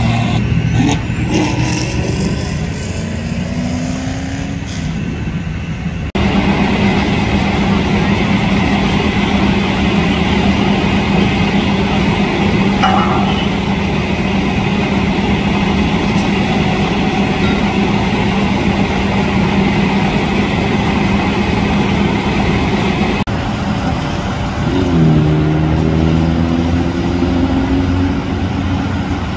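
Heavy diesel fire engine running steadily with vehicle noise around it. The engine's pitch rises and shifts near the end.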